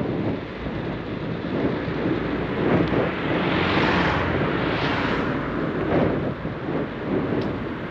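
Wind rushing over the microphone of a moving bicycle, with road traffic alongside; a passing car swells and fades around the middle.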